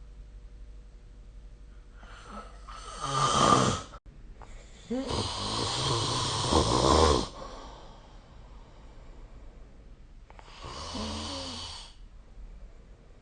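A sleeping person snoring: three snores, a short one about three seconds in, a long, loud one from about five to seven seconds, and a softer one near eleven seconds.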